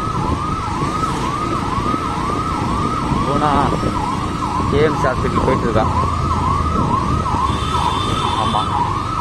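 Ambulance siren wailing in a fast, even up-and-down sweep about twice a second, over the rumble of the vehicle and traffic.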